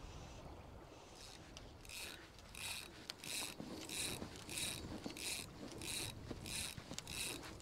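Fly line being retrieved with the fly rod, in about nine even, short, high-pitched zips a little under two a second, starting about two seconds in.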